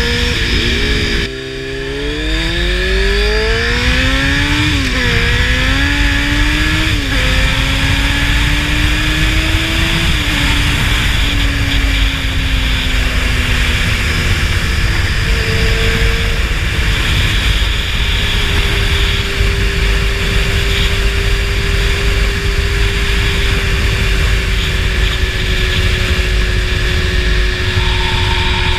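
Honda CBR600F4i's inline-four engine with a slip-on exhaust, accelerating through the gears: the pitch climbs and drops back with each upshift a couple of seconds in, eases down, then holds steady at cruising speed. Heavy wind noise rushes over the microphone.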